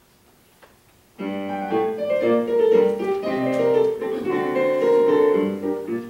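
Piano starts playing about a second in, a busy passage of chords and notes that forms the introduction to a choral piece, before any singing.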